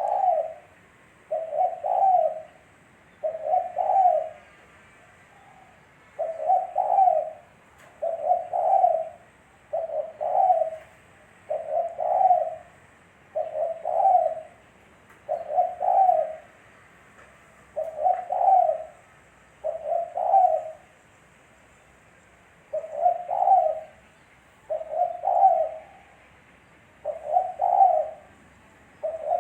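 Spotted dove (tekukur) cooing: a low, several-note cooing phrase repeated about every two seconds, with a couple of slightly longer pauses. Faint higher bird chirps sound behind it.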